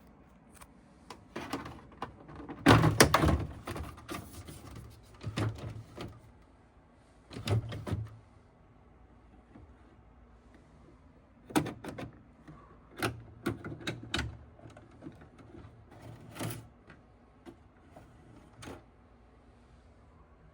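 Plastic clicks, knocks and rattles of an air conditioner's front panel and dust filter being handled, in scattered bursts, the loudest cluster about three seconds in.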